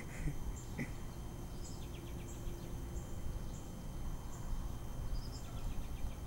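Steady low background rumble with faint, short high-pitched chirps repeating about every half second to a second, and a couple of brief trills.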